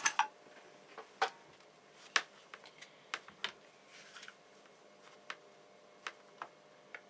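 About a dozen light, irregular clicks and taps as small tools and wires are handled on a workbench during soldering work.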